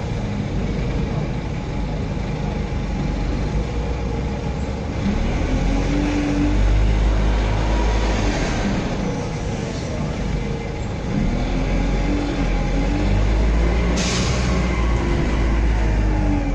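Inside a DAF SB120 Wright Cadet single-deck bus on the move, a steady low rumble runs throughout, and the engine and drivetrain note rises and falls several times as the bus speeds up and slows in traffic. There is a short, sharp hiss near the end.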